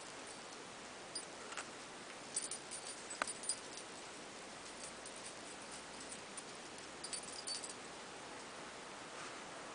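A Maltese puppy humping its plush dog bed: faint movement sounds with three short clusters of light, high-pitched clicks, over a steady hiss.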